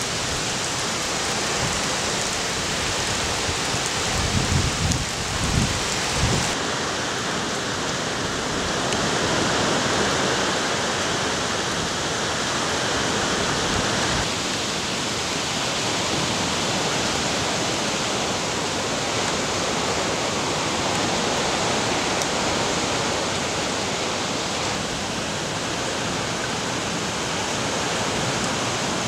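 Steady rushing water noise of storm rain and floodwater, with no tone or rhythm. Its character shifts abruptly a few times, and there are a few low bumps about four to six seconds in.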